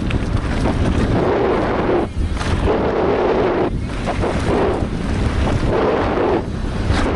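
Wind rushing over a helmet-mounted camera's microphone at downhill racing speed, with the rumble and rattle of a mountain bike riding over a rocky gravel trail.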